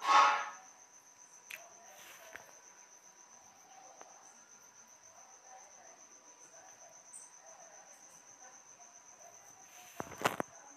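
An insect trilling steadily in a high, evenly pulsing tone. A brief loud burst of noise comes right at the start and another near the end.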